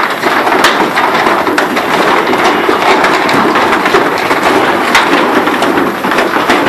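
Many cattle hooves clattering and knocking in a dense, irregular patter as a herd of Holstein cows walks down a livestock truck's metal, cleated loading ramp.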